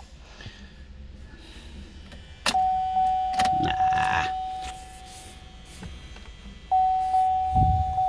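An Opel car's dashboard warning chime dinging at a single pitch, quick dings about every half second. It starts sharply a couple of seconds in, fades away over a few seconds, then starts again near the end. A few short knocks and rustles come in between.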